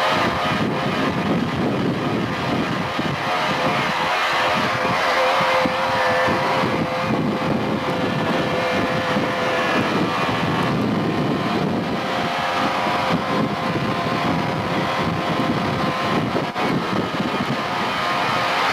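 An engine running steadily throughout, with a constant pitch.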